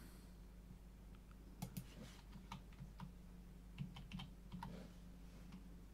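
Faint, scattered clicks of a computer keyboard being pressed at irregular intervals, over a low steady electrical hum.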